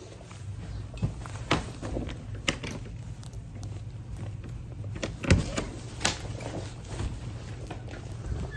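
Inside a car: the engine runs with a steady low hum, with scattered clicks and knocks of handling inside the cabin.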